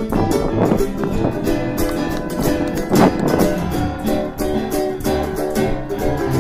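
Background music: an acoustic guitar track with busy plucked and strummed notes.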